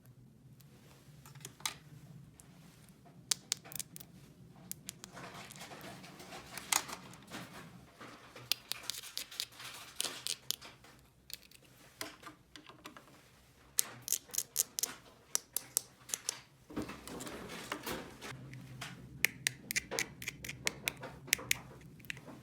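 Small plastic toy pieces being handled: runs of sharp clicks and taps with some scraping, over a faint steady low hum.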